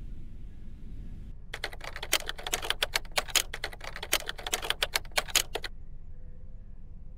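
Typing sound effect: a quick, uneven run of key clicks, starting about a second and a half in and lasting about four seconds.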